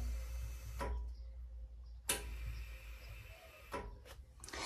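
Air-ride solenoid valve releasing compressed air from the reservoir tank into the rear air springs: a hiss that stops with a click about a second in, then opens again with a click about two seconds in, hisses for about a second and a half and clicks shut. Over a steady low hum.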